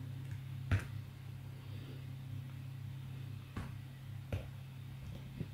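A few sparse, faint computer keyboard key clicks over a steady low hum.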